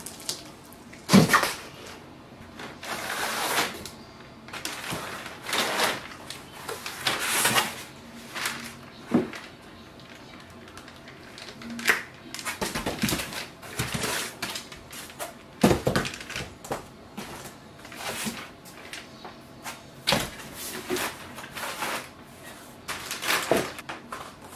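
Cardboard and styrofoam packing being handled while a large flat-panel display is unboxed: irregular rustling and scraping, with a few sharp knocks, the loudest about a second in and past the middle.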